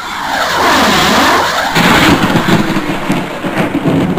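Logo-intro sound effect. A swooshing sweep falls and then rises in pitch, and about a second and a half in it switches suddenly to a loud, choppy crackling rumble.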